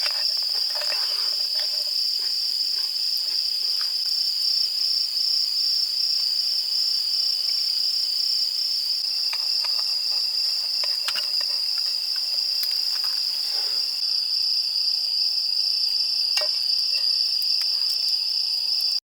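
Insects chirring in a continuous, high, slightly pulsing drone, with a few faint clicks scattered through it.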